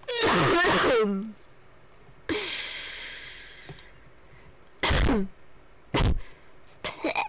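A person in a helpless laughing fit, without words. High squeaky cries fall in pitch, one long wheezing breath fades away, and short gasping bursts come near the end.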